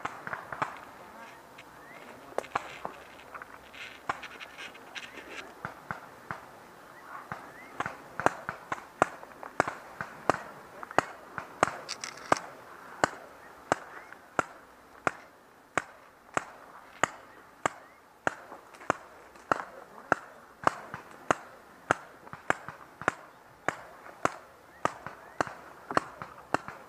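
Footsteps of a person walking: sharp, evenly spaced steps at about two a second, after a few irregular scattered clicks in the first several seconds.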